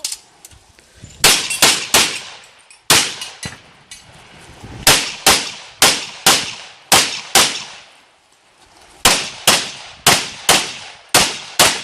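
Pistol shots fired in quick strings of two or three, about sixteen in all, with short pauses between strings while the shooter moves between targets. Each shot is sharp and trails off in a short echo.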